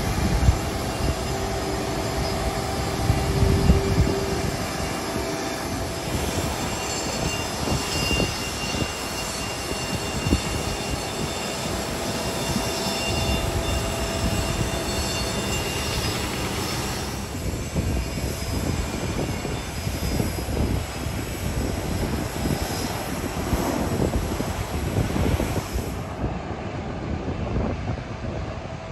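Airport ramp noise: a steady jet-aircraft whine and hum with several steady tones running through it, swelling louder about three to four seconds in. Near the end the sound changes suddenly as the high hiss drops away.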